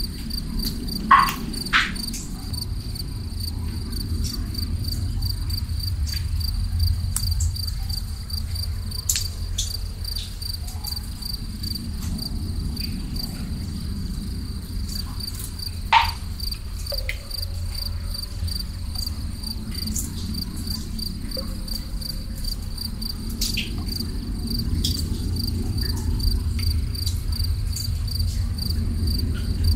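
Crickets chirping in a steady, fast, even pulse over a low rumble, with a few single water drips plinking: two close together about a second in and a louder one midway.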